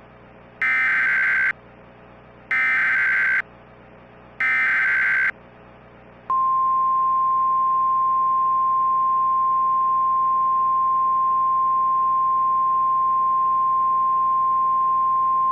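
Emergency Alert System alert opening: three short bursts of screechy digital data tones (the SAME header), each about a second long with a second's gap between them. About six seconds in comes a single steady, pure, high attention tone that holds.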